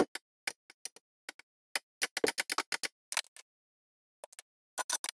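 Ratchet clicking in short irregular runs as the bolts holding the drive shaft's inner CV joint to the differential flange are undone, with a dense run of quick clicks about two to three seconds in and another near the end.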